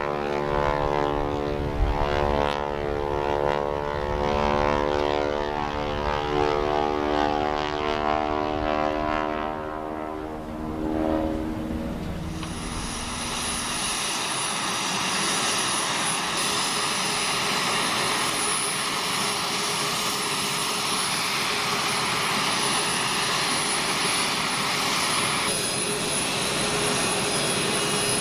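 Aircraft engines running: for the first twelve seconds or so a steady droning hum of several tones together, then a switch to a jet's rushing roar with a steady high whine.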